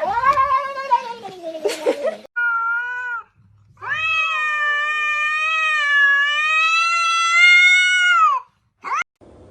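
Domestic cat yowling: a drawn-out falling meow, a short call, then one long wavering yowl of about four seconds, and a brief call near the end.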